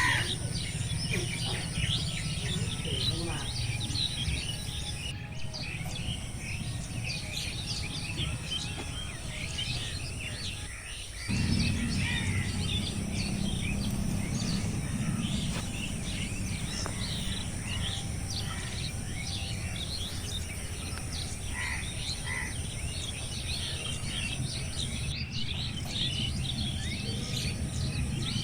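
A dense chorus of many small birds giving short chirps and calls, over a steady low rumble of wind noise. The background shifts abruptly about eleven seconds in, where the low rumble gets louder.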